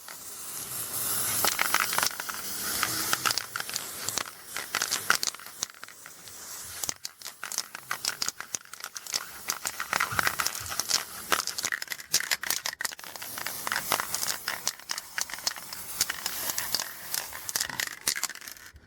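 Aerosol spray paint cans: hissing spray with many quick clicks and rattles throughout, the kind of rattling a can's mixing ball makes. The sound drops away at the very end.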